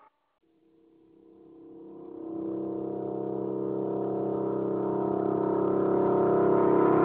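A steady drone made of several held pitches, fading in from near silence over the first two seconds and then slowly growing louder without any change in pitch.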